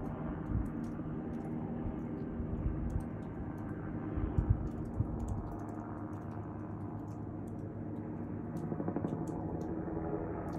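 Distant helicopter flying low: a steady engine hum with a fast, even rotor beat. A few low thumps and scattered faint clicks sit on top.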